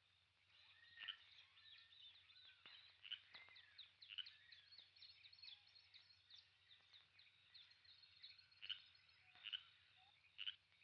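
Faint jungle night sounds of animal calls: short, sharp chirps every second or so, with a busy flurry of quick, falling chirps in the middle, over a steady low hum.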